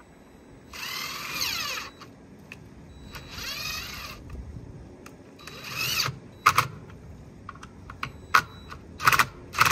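Cordless drill boring pilot holes into an old wooden door frame: three short runs of the motor whining, its pitch shifting as the bit bites into the wood. In the second half come several sharp knocks, louder than the drilling.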